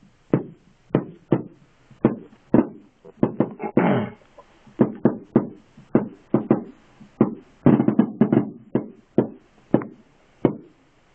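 Aerial fireworks bursting: a rapid, irregular string of sharp bangs, about two a second, each with a short echoing tail, with denser volleys about four seconds in and again near eight seconds.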